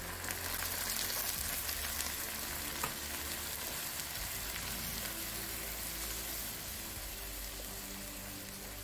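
Masala paste, fried onions and ghee in a frying pan sizzle hard as the liquid saved from cooking the prawns is poured in, then are stirred with a wooden spatula. The sizzle surges at the pour and slowly dies down.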